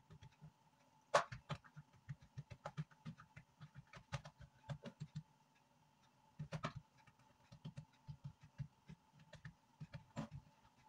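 Hands patting and pressing oiled gözleme dough out thin on a granite countertop: a run of soft, irregular pats and taps, with short busier flurries about a second in and again around six and a half seconds.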